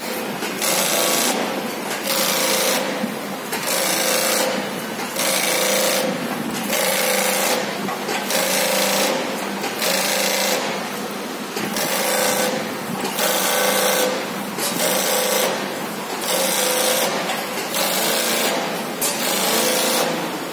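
Duke industrial sewing machine with a belt-puller feed running, stitching heavy fibreglass filter-bag fabric. Its sound swells and eases in a regular cycle every second or two.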